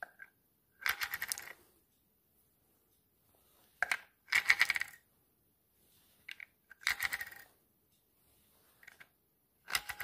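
Batteries being pushed one at a time into a soap dispenser's battery compartment, each going in with a short cluster of clicks and metallic scrapes against the spring contacts; four such bursts, a few seconds apart.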